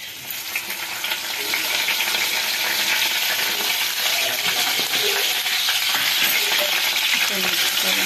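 Fresh curry leaves sizzling and crackling in hot oil, starting suddenly as they hit the oil and building within a second or so to a steady hiss.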